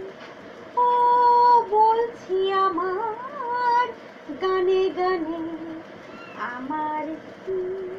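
A woman singing solo in short phrases, with long held notes and slides in pitch.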